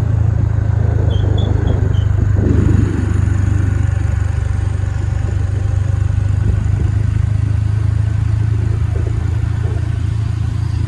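Steady drone of a vehicle's engine and road noise while driving, a constant low hum with rumble over it.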